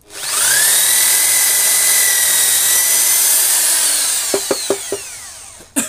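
A 1600-watt electric drill spins up with a rising whine and runs steadily for about three seconds. It then winds down with a falling whine as the trigger is let go. A few light knocks come as it slows, and a click near the end.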